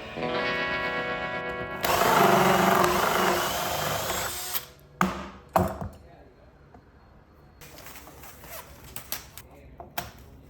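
A power tool running with a steady whine, turning louder and rougher after about two seconds, then three sharp knocks, followed by a quieter stretch with a few light clicks.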